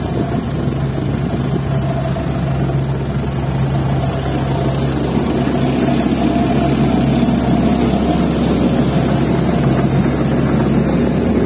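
Isuzu dump truck's turbo diesel engine running hard under load, with the Hitachi excavator's diesel running alongside, as the excavator bucket pushes the loaded truck out of the mud. The engine sound is steady and grows somewhat louder in the second half.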